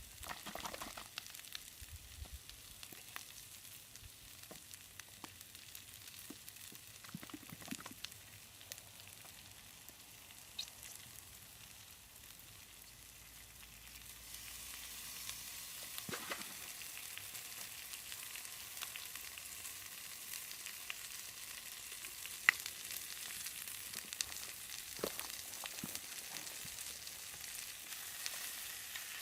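Yakisoba frying in a cast-iron skillet over a wood fire: a steady sizzle, louder from about halfway, with scattered sharp clicks and taps.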